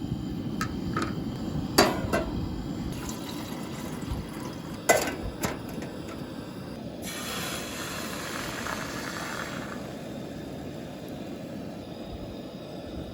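Camp cookware being handled, with several sharp clinks and knocks, then liquid being poured for about three seconds, over a steady low rumble.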